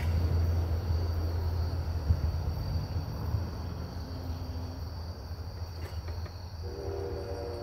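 Insects chirring steadily with a high, even tone, over a low rumble that slowly fades. Near the end a short sound of several stacked pitches comes in.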